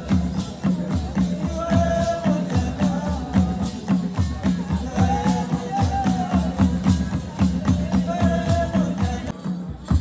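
Traditional Rwandan music played live for dancers: a steady drumbeat of about three strokes a second, with shaken rattles and a sung melody over it.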